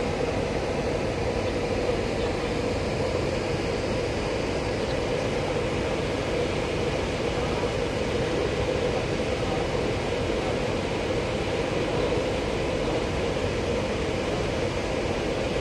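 Steady machinery drone at a docked roll-on/roll-off cargo ship: an even rushing noise with a constant hum in the middle, unchanging.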